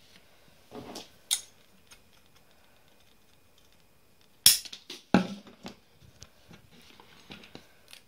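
Metal banana plugs being handled against a wooden surface: a couple of light clicks about a second in, then a sharp metallic click at about four and a half seconds, the loudest, followed by a knock and a scatter of smaller taps.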